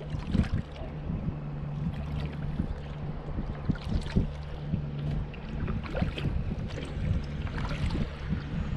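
Water lapping and splashing against a Sun Dolphin plastic kayak hull as it moves across the lake, in many small irregular slaps, with wind on the microphone. A steady low hum runs underneath.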